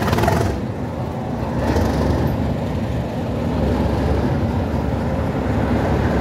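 Class 37 diesel locomotive's English Electric V12 engine idling with a steady low rumble.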